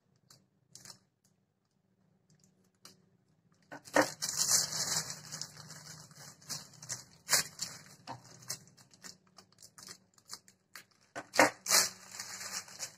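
A thin plastic piping bag crinkling and rustling in the hands as a metal star nozzle is pushed down into its cut tip, with a few sharp clicks and taps. It starts about four seconds in, after a near-silent opening.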